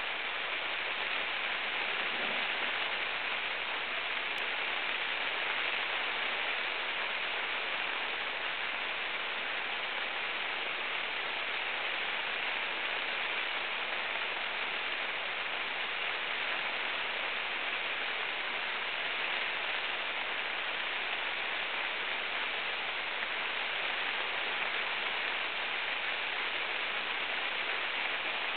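Rain falling steadily: an even hiss that holds unchanged throughout, with no sounds from the sleeping dog.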